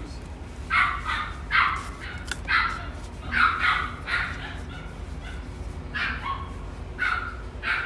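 Pomsky puppy yipping in play: about ten short, high yips in uneven clusters, with brief pauses between them.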